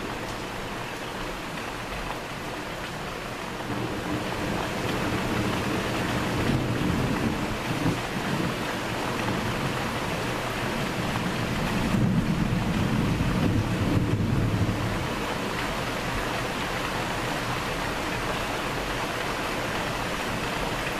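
Steady rain with a long rumble of thunder that builds about four seconds in, is loudest around twelve to fourteen seconds, then fades.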